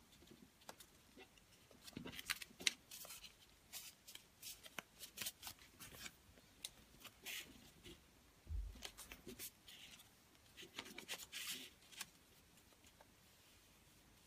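Faint rustling and crinkling of folded printed paper squares being handled and pressed together, with scattered light clicks and one soft thump a little past halfway; it goes quieter near the end.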